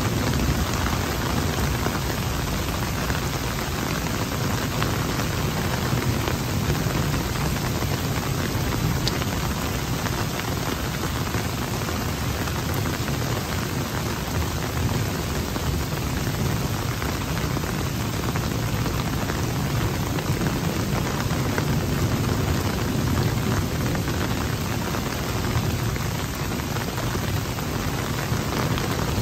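Steady rush of turbulent stormwater churning up through a flooded retention pond as it overflows.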